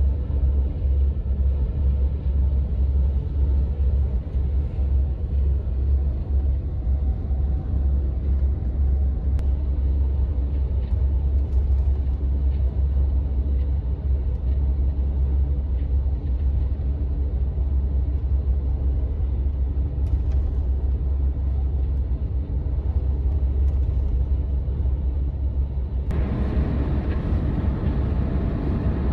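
Steady low rumble of a double-decker highway bus at cruising speed, engine and tyre noise heard inside the cabin. Near the end the road noise grows louder and brighter.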